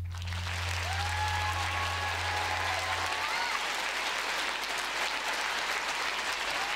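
Audience applauding at the end of a dance, with a voice calling out over the clapping. A low held note from the music stops about three seconds in.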